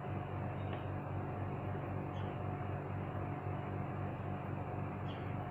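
Steady background hiss with a low electrical hum and a faint steady tone, with two faint short high chirps.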